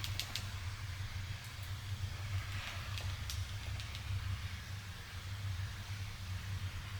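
Faint, soft keystrokes from a keyboard with Kailh Silent Latte silent switches: a few scattered muted taps, mostly in the first four seconds. They sit over a steady low hum and hiss of background noise, which is the loudest thing heard.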